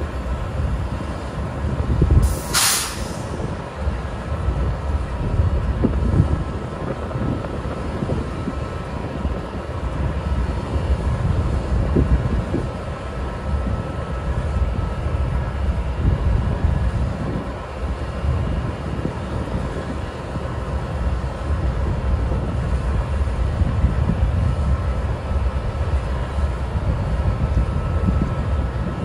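GE Dash 9-44CW diesel locomotive idling at a standstill: its V16 7FDL diesel gives a steady low rumble with faint steady whining tones above it. A short sharp hiss of air comes about two seconds in.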